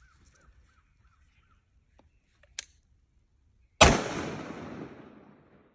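One rifle shot from a DPMS AR-15 firing a 5.56 green-tip round, nearly four seconds in, sharp and loud, followed by an echo that fades over about a second and a half. A sharp click comes just over a second before the shot.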